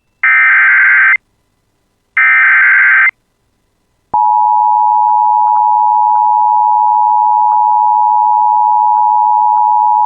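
Emergency Alert System SAME header: two one-second bursts of screeching data tones, about a second apart. About four seconds in, the steady attention tone near 1 kHz starts and holds, announcing that a warning message follows.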